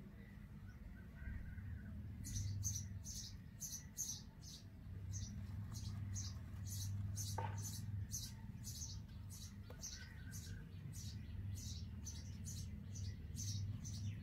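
Indian robin nestlings giving rapid, high-pitched begging chirps, about two to three a second, starting about two seconds in, over a steady low hum.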